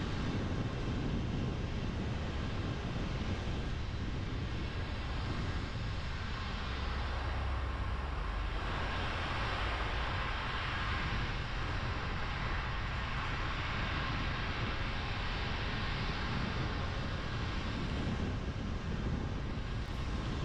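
Car driving on a rain-soaked road: a steady low rumble of engine and tyres with a hiss of wet-road spray. The hiss swells for several seconds around the middle.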